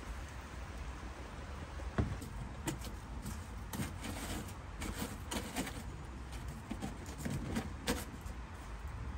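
Chicken frying in hot oil: a steady sizzle with scattered sharp crackles and clicks.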